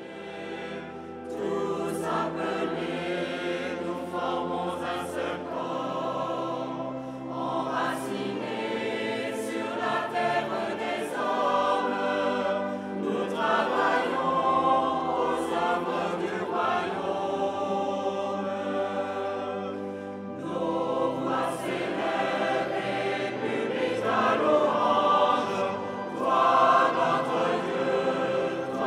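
Mixed choir of men's and women's voices singing sacred choral music in sustained phrases.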